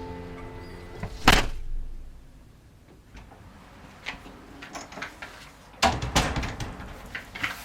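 One sharp loud bang about a second in, then a quiet spell and a run of quick knocks and clattering near the end.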